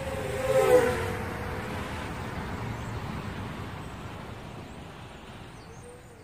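Intro sound effect: a pass-by with a falling pitch that peaks about a second in, then a rushing noise that fades away over several seconds, with a short pitched sound again near the end.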